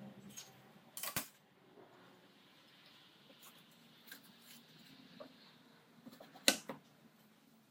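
Workshop handling sounds on a table saw's top: light taps and scrapes of wooden strips, a steel ruler and a plywood board. A brief scrape about a second in, and one sharp knock about six and a half seconds in as the plywood board is set down on the runners.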